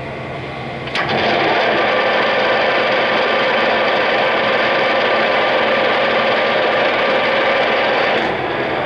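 Clausing Colchester engine lathe spindle engaged with a click about a second in. The chuck then spins with a steady geared-headstock whine until, near the end, it drops back to a lower steady hum.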